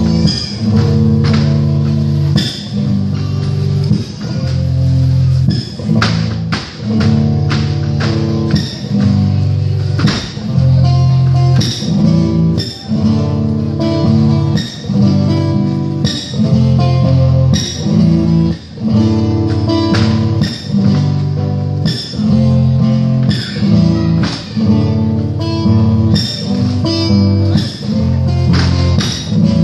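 Malambo music on strummed guitar with a repeating low bass line, over many sharp stamps and strikes from the dancers' zapateo footwork.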